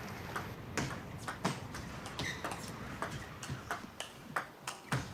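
Celluloid-type table tennis ball clicking sharply off paddles and table in a fast rally, about three ticks a second in an uneven rhythm.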